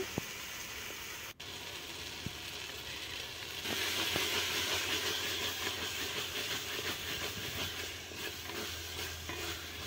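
Chicken keema and tomato masala hissing and sizzling in a hot metal pot as it is stirred. The hiss grows louder about three and a half seconds in, as steam rises thickly off the pot.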